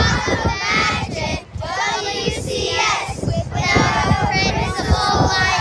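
A group of children's voices shrieking and calling out together, high-pitched and wavering, with wind rumbling on the microphone.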